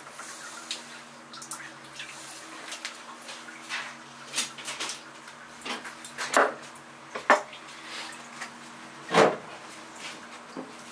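Knife work on a whole yellowtail on a cutting board: scattered knocks and scrapes, with a louder knock about nine seconds in, over a steady low hum.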